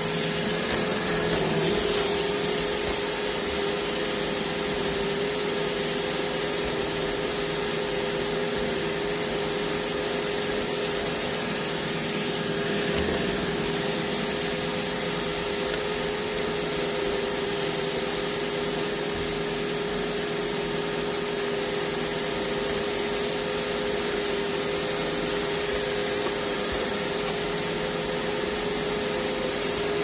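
iRobot Roomba e5 robot vacuum running steadily, its motor giving a constant hum over an even rushing noise.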